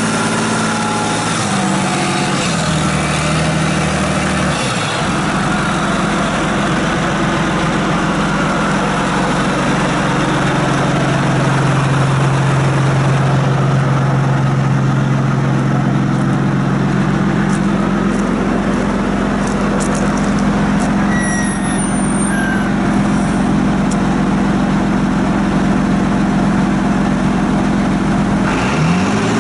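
John Deere 8220 tractor's six-cylinder diesel engine running steadily, its note shifting over the first few seconds as the tractor moves across the lot, with a short rising sweep near the end.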